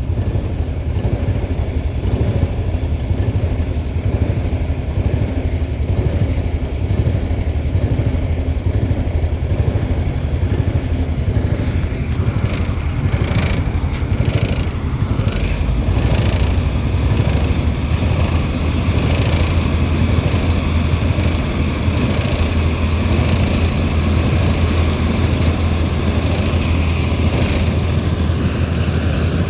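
Farm tractor engine running steadily during corn picking, with a few brief clatters around the middle.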